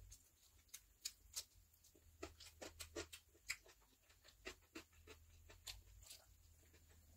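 Close-miked eating by hand: fingers working biryani rice on a steel plate, and chewing. It comes as an irregular string of soft clicks and smacks.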